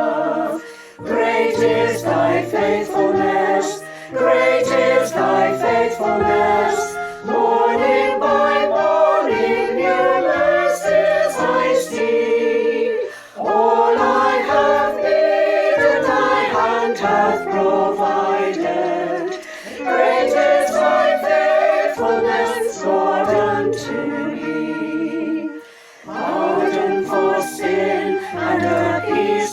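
A choir singing a hymn in harmony, in phrases of a few seconds with brief breaks between them.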